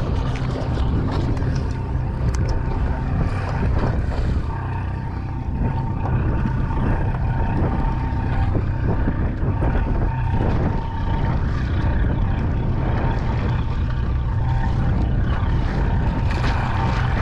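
Boat engine running steadily: a continuous low rumble with a faint, steady higher tone over it.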